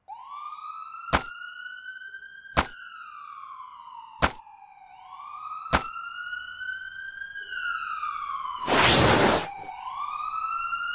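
Police siren wailing, rising and falling slowly twice, with four sharp clicks about a second and a half apart during the first half. A loud rushing burst of noise cuts in briefly a little after the middle.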